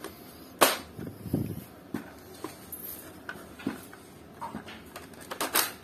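Plastic clicks and knocks from a toy AWM L96 bolt-action foam-dart blaster as its magazine is pushed in and the bolt is handled. A sharp snap comes about half a second in, several softer knocks follow, and a quick pair of clicks comes near the end.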